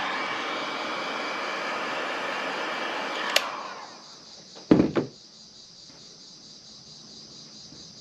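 Black+Decker heat gun blowing hot air onto heat-shrink tubing, switched off with a click about three and a half seconds in, its fan winding down within half a second. About a second later come two knocks as the gun is set down on the wooden workbench, leaving only a faint steady high hiss.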